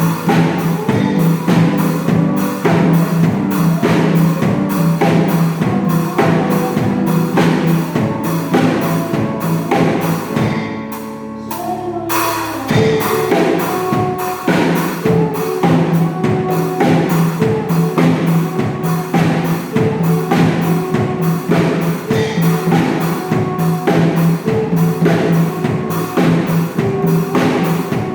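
A children's school pop-rock band playing a song on drum kit and bass with a steady beat. About eleven seconds in the drums stop for about two seconds while a held chord fades, then the full band comes back in.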